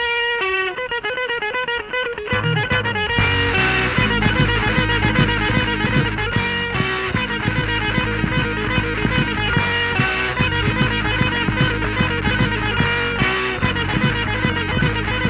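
Rock band playing an instrumental passage: a guitar picks a melody alone for about two seconds, then bass and drums come in and the full band plays on with a steady beat.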